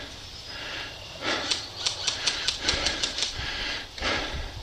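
Airsoft guns firing a run of about ten sharp shots, several a second, starting about a second in and stopping past the middle.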